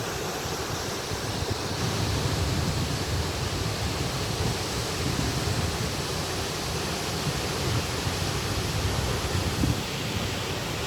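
Rushing water of the Cascata delle Marmore, a large waterfall, heard as a steady, dense hiss with a fluctuating low rumble.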